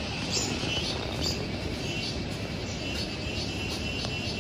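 Steady rushing of a distant mountain river tumbling down the valley, heard as an even hiss, with short high chirps repeating over it.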